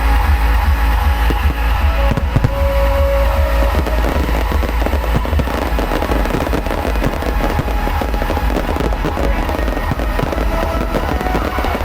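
Aerial fireworks going off in rapid succession, a dense run of bangs and crackles that thickens about four seconds in, over loud music with a heavy bass beat.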